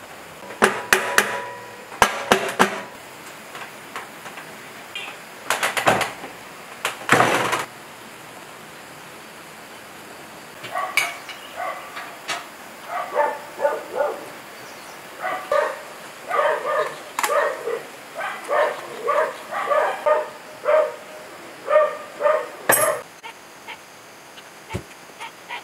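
Metal clanks and knocks as parts of a single-cylinder diesel engine are fitted together. About ten seconds in a dog starts barking, a string of short barks at about two a second for some ten seconds.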